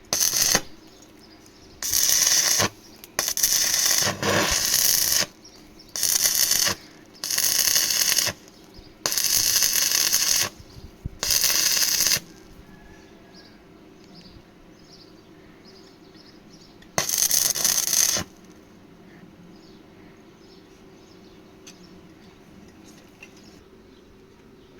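Electric arc welding: the arc crackles and sizzles in a series of short welds, about nine in all, each lasting under a second to about a second and a half, with pauses between, the last one around 17 seconds in.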